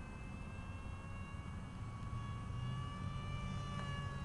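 Motor and propeller of a distant RC model plane in flight: a high whine with a slowly wavering pitch that sags near the end, over a steady low rumble.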